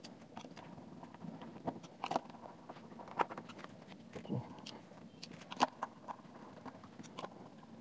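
Faint, scattered clicks and light taps as the plastic housing of a JBL Go+ speaker is handled and its small screws are put back, a screwdriver driving one in near the end.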